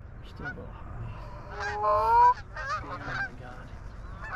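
Goose honking: a series of short honks, with one longer drawn-out honk about two seconds in, the loudest.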